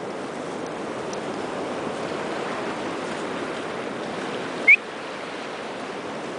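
Steady rush of surf washing over shoreline rocks, with one short, sharp high chirp about three quarters of the way through.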